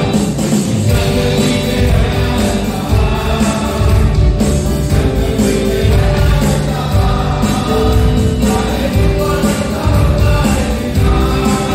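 Live worship band playing a Hindi gospel song: keyboards and electric guitar over a steady bass and beat, with a man singing lead.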